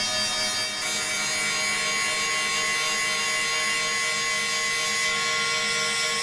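Dark ambient drone soundtrack: many held tones layered under a harsh, grinding hiss that swells about a second in.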